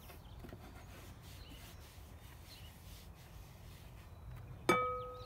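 Cloth towel rubbing a plastic pitcher as it is dried, a faint steady rubbing. Near the end a sharp knock that rings briefly.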